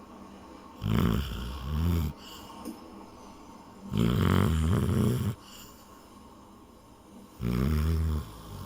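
Chow chow dog snoring loudly in its sleep: three rough snoring breaths about three seconds apart, the first broken into two parts and the middle one the longest.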